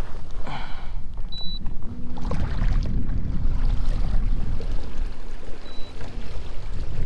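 Water trickling and lapping around a kayak's hull, over a low rumble. A faint steady hum runs from about two to six seconds in.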